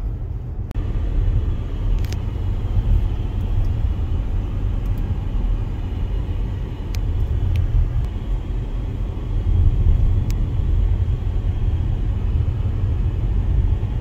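Car driving on the road, heard from inside the cabin: a steady low rumble of engine and tyre noise, with a few faint clicks.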